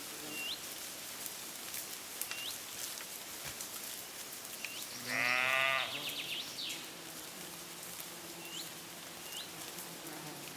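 A single bleat from grazing livestock about halfway through, lasting about a second with a quavering, pulsing voice. Short high rising chirps repeat every few seconds over an outdoor background.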